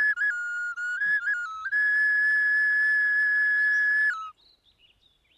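Flute playing a slow, plain melody of a few stepped notes, ending on one long held high note that stops about four seconds in.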